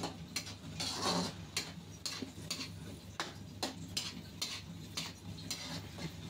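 Metal spatula scraping and knocking against a wok while stirring thick squid adobo, about two strokes a second.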